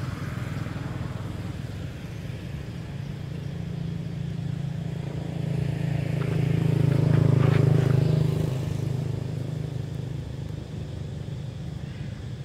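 Steady low hum of a motor vehicle engine, swelling to its loudest about six to eight seconds in and then fading, as of a vehicle passing by.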